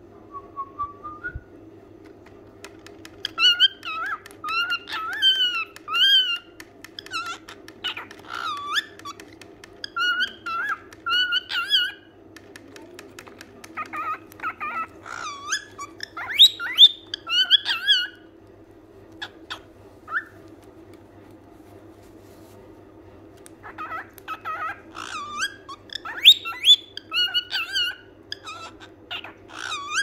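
White cockatiel whistling in runs of short, quickly bending notes, in three spells with short pauses between them.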